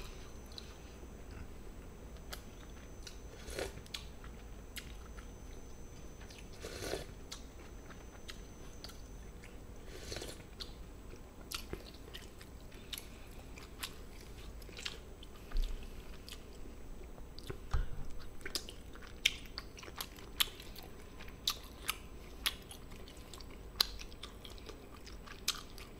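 A person eating: faint chewing and biting, with scattered short crunches.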